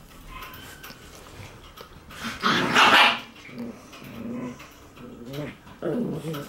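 Shiba Inu puppies play-fighting, growling and barking: one loud growling bark about two and a half seconds in, then shorter growls near the end. It sounds like a fight but is only rough play.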